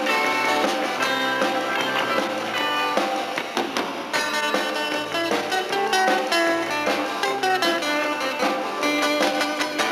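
Country-rock band playing a guitar-led instrumental break, with no singing.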